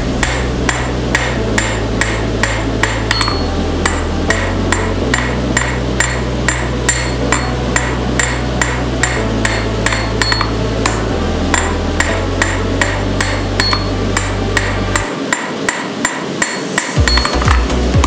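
Hand hammer striking a red-hot railroad spike on an anvil in a steady rhythm of about two to three blows a second, drawing the blade out toward the tip. Background music plays underneath.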